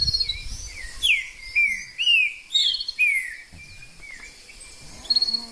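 Several wild birds calling together: many short, sharply falling whistled notes overlapping in the first three seconds, thinning out after that, with a quick high trill about five seconds in.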